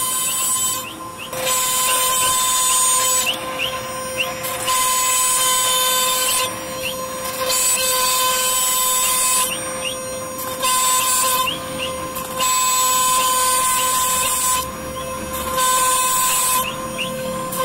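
CNC router spindle cutting a jali pattern into a wooden board: a steady high whine, with loud cutting noise that comes and goes every second or two as the bit works through the wood and lifts between cuts. Short rising chirps are heard along the way.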